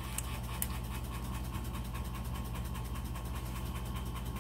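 Electric pump running with a steady hum and a fast, even pulsing, keeping the brake system pressurised while the brakes are bled; two light clicks in the first second.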